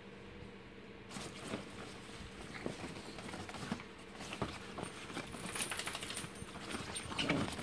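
Two small dogs play-wrestling on a padded dog bed: irregular scuffling and paw scrabbling on the fabric, with collar tags jingling now and then. It starts about a second in and is loudest near the end.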